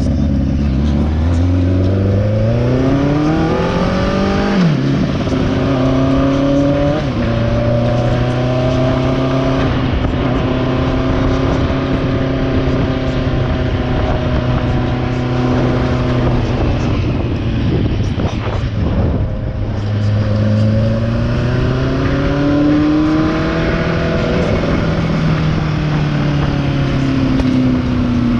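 Motorcycle engine under way: revs climb for the first few seconds, drop sharply at a gear change about four and a half seconds in, then hold a steady cruise. Past twenty seconds the revs climb again and ease off near the end. The bike has an exhaust leak.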